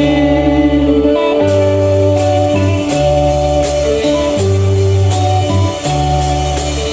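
Instrumental break of a Latin American romantic song: guitar and keyboard chords over a bass line that changes about once a second.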